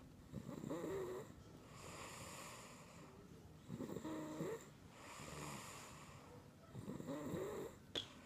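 A person snoring: three rough, pitched snores about three seconds apart, each lasting about a second, with quieter breathing between them.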